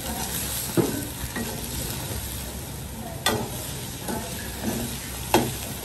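King crab pieces sizzling in a wok while a slotted spatula stirs and turns them. Three sharp knocks of the spatula against the wok, about a second in, past the middle and near the end.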